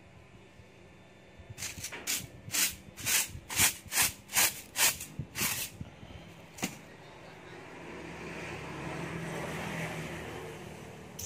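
A straw broom sweeping sawdust: about ten quick, brisk strokes, then a softer, steadier brushing hiss.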